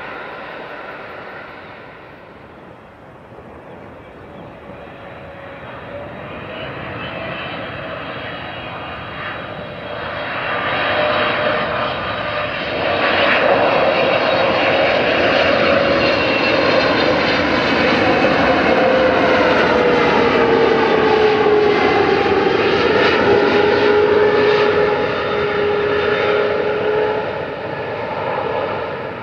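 Korean Air Boeing 777 twin-jet on final approach, its engine noise building over several seconds and then holding loud. A whine in it drops in pitch as the jet passes about twenty seconds in, and the noise eases near the end as it nears touchdown.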